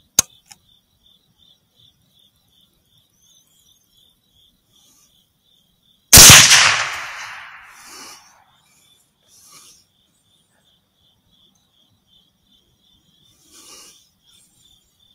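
A single .308 rifle shot, firing Hornady 168 gr ELD ammunition, about six seconds in. Its report dies away over about two seconds. Insects chirp steadily throughout at about two to three pulses a second, and there is a sharp click just after the start.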